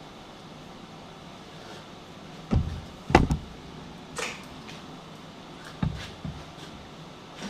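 A handful of separate knocks and clunks, as of metal gear being handled and set down. The loudest are a pair about three seconds in, with lighter ones later, over a quiet steady background. No steady welding arc is heard.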